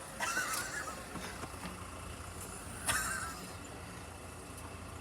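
Passenger lift car travelling with a steady low hum, with two brief squeaks, one just after the start and a louder one about three seconds in.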